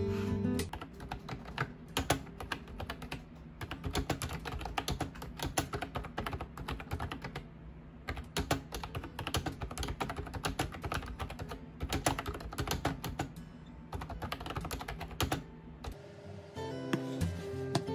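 Fast typing on a wireless retro typewriter-style keyboard with round keycaps: a dense run of key clicks with a short break about halfway, stopping shortly before the end, when acoustic guitar music takes over.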